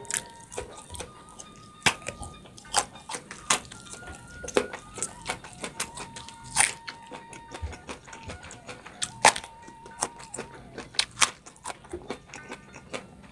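Close-up crunching and chewing of raw vegetables eaten by hand, with sharp crisp crunches coming irregularly several times a second, loudest about six and a half and nine seconds in.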